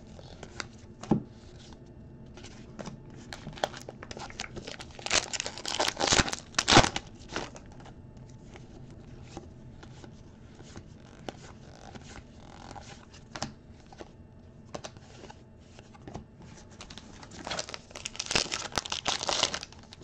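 Stiff trading cards being flipped and slid against one another, giving scattered light clicks, with two stretches of crinkling and tearing, about five to seven seconds in and again near the end, where a 2023 Topps Allen & Ginter pack wrapper is being torn open.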